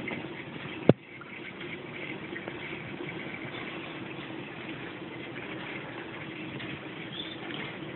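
Steady bubbling, trickling water from an aquarium's running filter, with a single sharp click about a second in.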